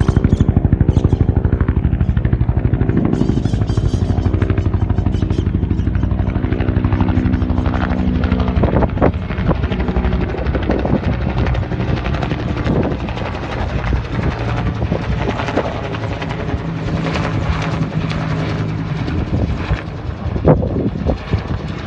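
Bell UH-1N twin-engine helicopter, its rotor beating in a rapid, even pulse. Loudest in the first several seconds, then somewhat quieter.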